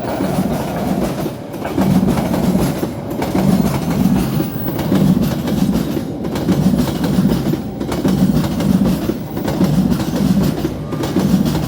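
Train passing close by, its wheels clattering over the rail joints in a steady, rhythmic clickety-clack of about two clacks a second.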